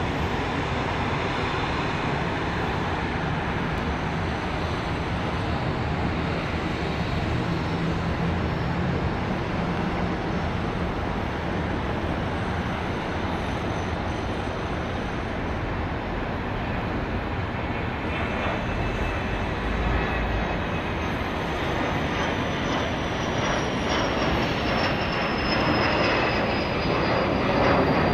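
Twin turbofan engines of a 1978 Learjet 35A running at takeoff power through the takeoff and climb-out: a steady jet roar that grows louder near the end as the jet comes overhead, with a high whine that slowly falls in pitch over the last several seconds.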